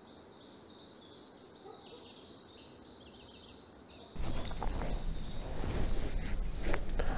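Small birds chirping, a quick run of short falling calls over quiet outdoor ambience. About four seconds in, this switches abruptly to a louder steady outdoor rush with a low rumble.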